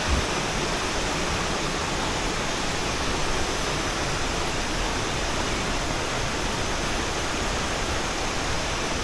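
Waterfall's falling water, a steady even rushing with no break.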